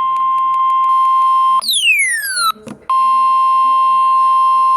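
Loud steady emergency alert tone near 1 kHz, the pitch of the NOAA Weather Radio 1050 Hz warning alarm tone that heralds a warning, here ahead of a severe thunderstorm warning. About a second and a half in it breaks for a quick falling electronic sweep and a click, then holds steady again until near the end.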